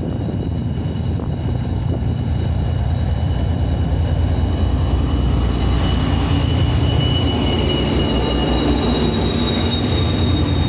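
2M62U twin-section diesel locomotive passing slowly at close range, its two-stroke V12 diesel engines running with a deep rumble that grows louder as it draws alongside. A steady high whine sits above the rumble.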